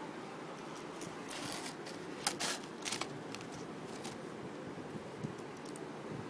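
Light handling noise: a few short clicks and scrapes of small objects, the loudest a little over two seconds in and again about three seconds in, over a steady hiss.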